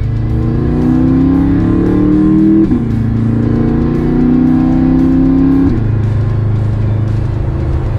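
BMW F10 M5's twin-turbo V8 accelerating hard, its pitch climbing and then dropping sharply at two upshifts about three seconds apart, with music playing over it.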